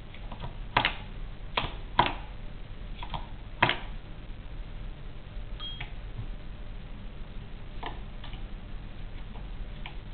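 Lambert 2 typewriter from about 1904 being typed on: irregular sharp mechanical clacks, four loud ones in the first four seconds, then fainter clicks spaced a second or two apart.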